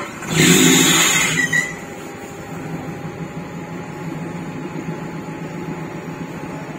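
Off-road 4x4's engine revs briefly, with a loud rush of noise for about a second, then settles back to running steadily while the vehicle sits in deep mud.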